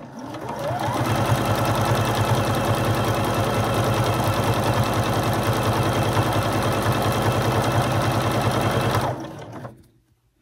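Sewing machine stitching a straight hem. It speeds up with a rising whine over the first second, runs at a steady fast rate, and stops about nine seconds in.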